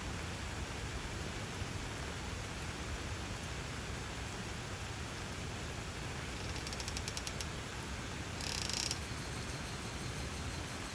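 Steady hiss of rain falling, with a quick run of faint clicks about two-thirds of the way through and a brief sharper hiss soon after.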